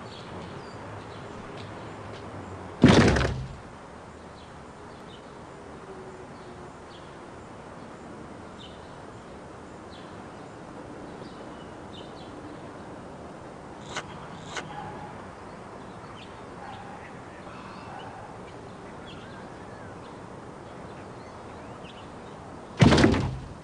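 Two loud thuds, like something heavy shutting, about twenty seconds apart, each dying away within half a second. Between them run a steady background hiss, faint short chirps and a couple of light clicks.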